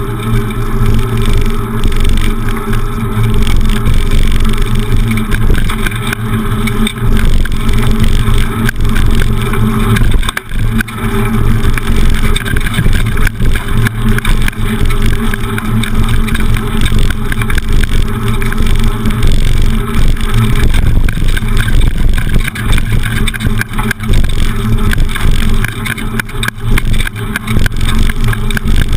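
Loud, steady low rumble of wind and riding vibration on a camera mounted on the handlebars of a beach cruiser bicycle in motion.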